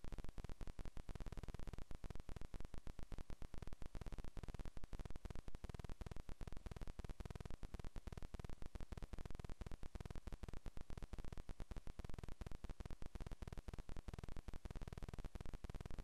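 Electrical static and a faint hum on the nest camera's audio feed, a rapid, uneven crackle with no bird calls.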